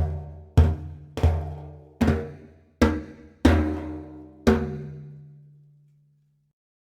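Sampled Middle Eastern percussion from Native Instruments' Discovery Series Middle East Kontakt library: a drum struck about seven times at an uneven pace, each hit with a deep ringing tone, the last one left to ring out.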